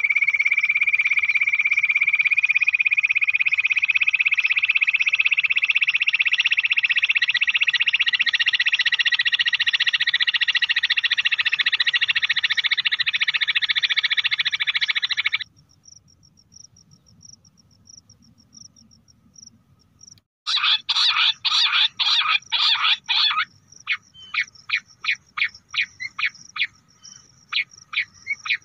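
Bush quail calling: a dense, rapidly pulsing trill that rises slowly in pitch and cuts off abruptly about halfway through. After a few near-silent seconds comes a burst of quick sharp notes, then separate notes at about three a second.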